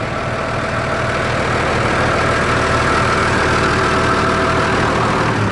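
Tractor diesel engine idling steadily.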